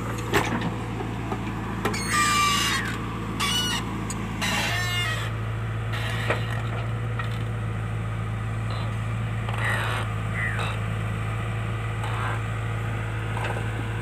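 JCB backhoe loader's diesel engine running steadily as the backhoe bucket digs soil, its note stepping up a little about five seconds in. A couple of sharp clunks, and a few short high-pitched sounds in the first five seconds.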